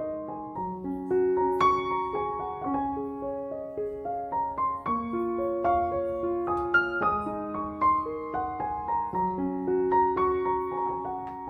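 Background music: a solo piano playing a gentle, steady flow of overlapping notes.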